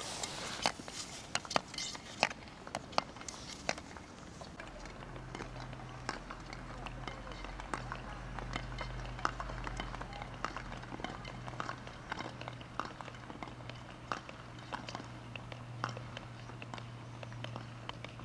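Ice skate blades clicking and scraping on the rink ice as skaters stride past, with a steady low hum starting about five seconds in.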